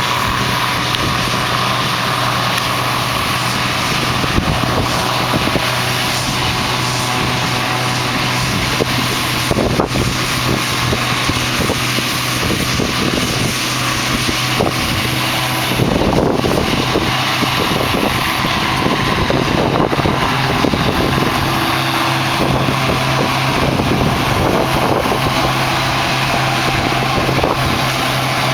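Combine harvester running steadily while combining wheat: a constant engine and threshing-machinery drone with a steady low hum.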